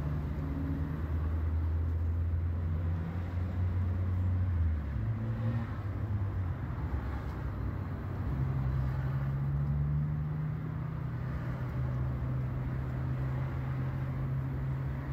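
Low, steady hum of vehicle engines in street traffic, with a few tones that change pitch about four and a half seconds in and again about eight seconds in.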